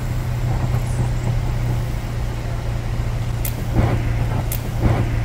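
Pickup engine idling steadily. In the second half, about once a second, a sharp click comes with a short hissing spurt as brake fluid is forced out of a dog-bitten rubber brake hose at each press of the pedal.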